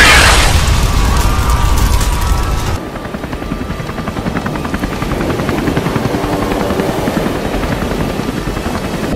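Loud crashing rumble that cuts off abruptly about three seconds in. It gives way to the fast, steady chop of a helicopter's rotor.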